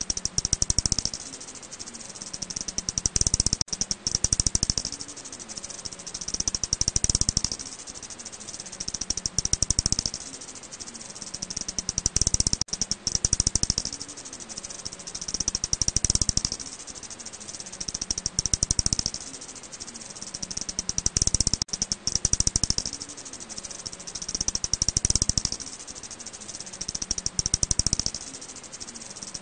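Recorded calls of the eastern long-fingered bat (Miniopterus fuliginosus): rapid trains of sharp clicks that swell into loud bursts about every three seconds and fade between them.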